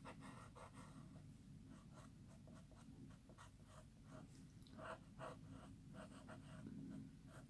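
A run of faint, light scratching strokes: a pencil-style sand eraser rubbed along the cut edge of a black card panel, cleaning off the excess gold foil.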